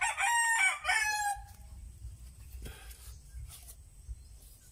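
A rooster crowing once, a single pitched call that ends about a second and a half in, followed by faint low background.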